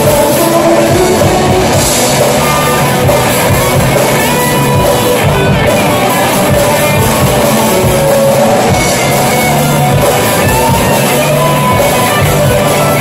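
Rock band playing live: electric guitars, bass and drum kit, loud and steady.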